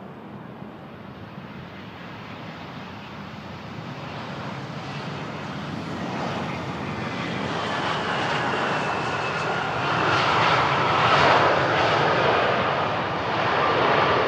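Volaris Airbus A320 jet landing and rolling out on the runway. Its engine noise swells as it comes closer, loudest about ten to eleven seconds in, with a high whine sliding slowly downward.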